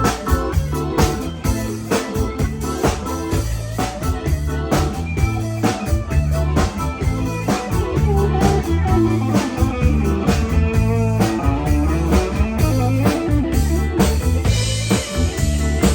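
Blues-rock band music: guitar over a bass line and a drum kit keeping a steady beat, brighter near the end.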